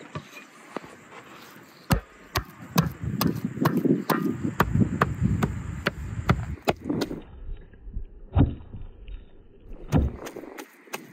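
Meat cleaver chopping raw meat and fat on a wooden chopping block, cutting it into small pieces: a run of sharp, irregular knocks, a few a second, starting about two seconds in.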